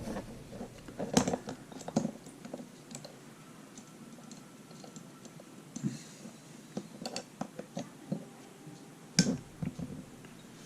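Scattered clicks and light scraping as a tubing cutter is worked on a short piece of 1/4-inch water-line tubing, with two louder knocks, one about a second in and one near the end.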